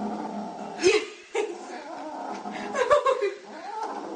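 Kitten growling and yowling over its food: a drawn-out low growl, then wavering cries that bend up and down in pitch.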